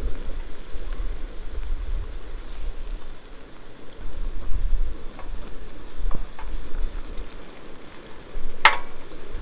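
Flour-dredged pieces of nutria meat and onions sizzling in oil in a frying pan, with a low rumble of wind on the microphone. A few faint ticks, then one sharp click near the end.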